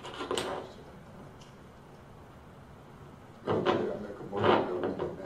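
A short bump or handling knock near the start, then indistinct voices talking away from the microphone from about three and a half seconds in.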